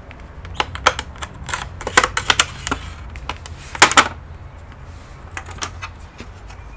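Irregular sharp clicks and taps of hands and tools working on an HP ZBook Power G7 laptop's case, with a cluster about two seconds in and a louder pair of clicks about four seconds in.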